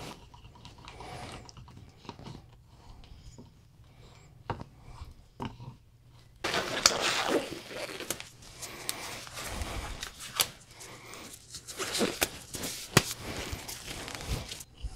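Silicone spatula stirring liquid resin in a plastic cup, faint scraping and light ticks. From about six seconds in, a louder spell of rustling and sharp clicks as hands handle things on the bench, cutting off shortly before the end.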